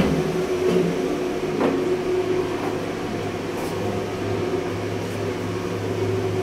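Steady hum of running machinery, a constant low drone with a steady higher tone over it, and a light knock about a second and a half in.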